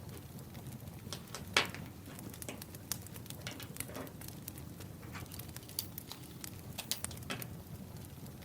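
Wood fire crackling: irregular sharp pops and snaps over a low, steady rush of the flames, with one louder pop about a second and a half in.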